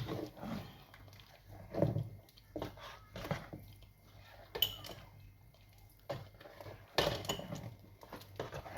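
A spoon stirring thick soup in a pot, scraping and knocking irregularly against the pot, with a brief metallic clink about halfway through.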